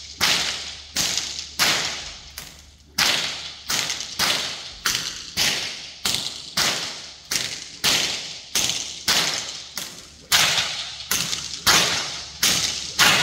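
Whip cracked over and over from horseback, a sharp crack about every half second, each one echoing briefly in a metal-walled arena.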